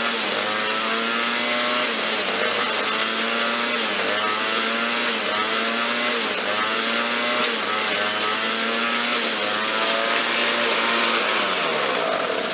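Craftsman two-stroke snowblower engine running loud and unloaded, its speed rising and dipping again about every second and a half, which the owner takes for the governor kicking in because it is pushing no snow. Near the end the engine winds down and stops.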